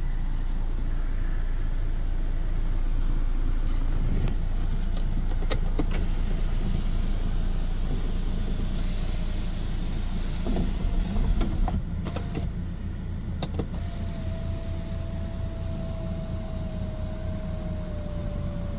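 2012 Hyundai i30 running with a steady low rumble and a few sharp clicks. Near the end an electric power-window motor whines for about five seconds, its pitch sinking slightly as it runs.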